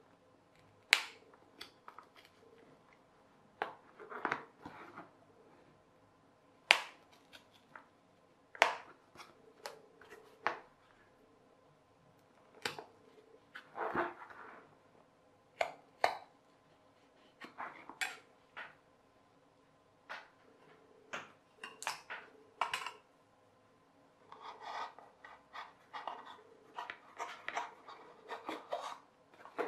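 A pencil scratching marks on a cardboard box, with the box and tools handled and set down in scattered sharp taps and knocks. The scratchy rubbing comes in short passages, more of it near the end.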